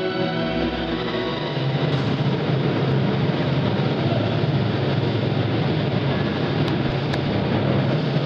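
Accompaniment music for a synchronized swimming duet played over loudspeakers, with a clear tune for the first second or so; after about a second and a half it turns into a dense, even din with little clear melody.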